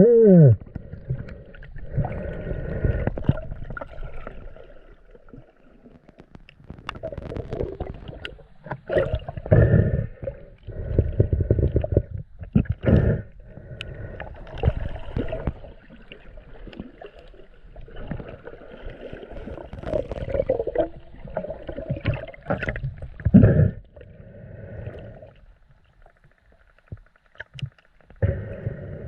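Muffled water sloshing and gurgling in shallow sea water during snorkelling, in irregular rushes with knocks and splashes between them.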